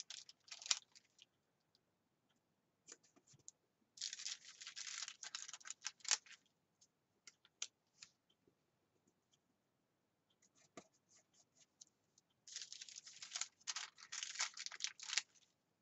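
Paper planner stickers being peeled from their backing and the sticker sheets handled: two stretches of scratchy rustling about four and twelve seconds in, with small ticks and taps between.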